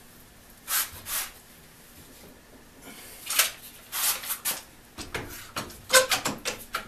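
Wooden boards being shifted and a one-handed trigger bar clamp being handled, giving short scraping and knocking noises. Near the end comes a quick run of clicks and knocks as the clamp is fitted and tightened onto the board.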